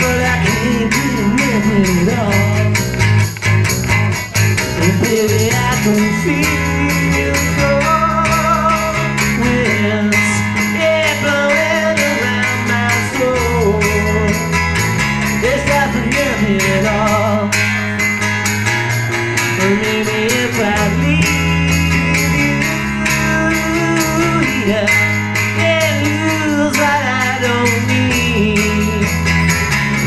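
Live acoustic band playing: strummed acoustic guitars over a bass guitar line that moves every second or two, with jingling percussion keeping an even beat.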